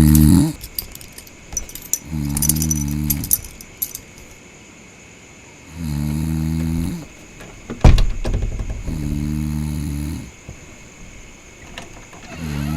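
A person snoring: low, roughly one-second snores coming evenly about every three and a half seconds. There is a single sharp knock about eight seconds in.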